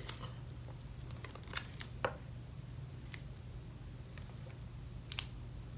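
Light handling of a cardboard iPhone box in the hands: a few faint, scattered clicks and taps, the sharpest near the end, over a steady low room hum.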